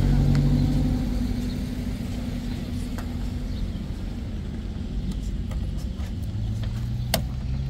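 A motor vehicle's engine running, its pitch dropping after the first second and climbing again near the end, with a sharp click about seven seconds in.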